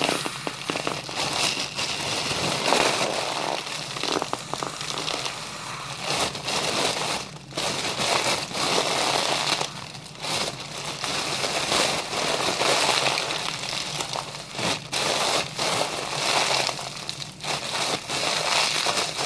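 Foil (Mylar) party balloon crinkling and crackling as it is squeezed and crumpled in both hands close up, in stretches of a few seconds broken by short gaps.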